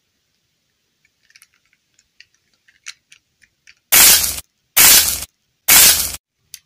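Pink play-dough being squeezed and pulled off a small doll's head by fingers: faint scattered clicks, then three loud bursts of harsh noise about a second apart, each lasting about half a second.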